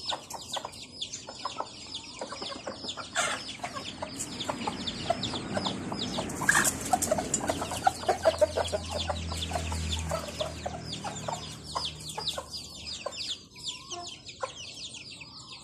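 A brood of native chicks peeping constantly in rapid, high, falling cheeps, while a hen clucks lower. A low rumble and rustling rise near the middle.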